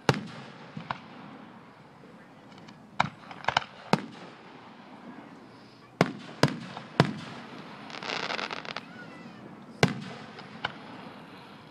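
Aerial firework shells bursting: a string of sharp booms, each trailing off, with several in quick succession around three to four seconds in and again around six to seven seconds in.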